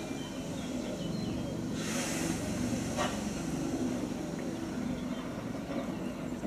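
Pannier tank locomotive No. 1638, a 1600 class 0-6-0, moving slowly with steam hissing, including a louder burst of hiss about two seconds in. A single sharp knock comes about a second later.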